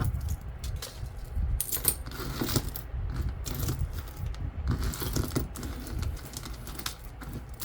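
Metal jewelry pieces and chains clinking and jingling against each other as a hand rummages through a bucket of mixed jewelry, with a steady low handling rumble underneath.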